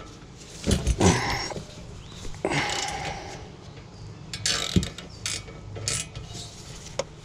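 Irregular metallic clicks and scrapes from hand tools and parts being worked on a car's rear brake caliper.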